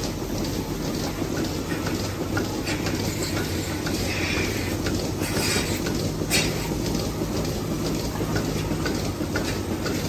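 Milking parlour machinery running with a steady hum and a rushing noise, broken by a few sharp metallic clicks and clanks as teat-cup clusters are handled and attached to the cows.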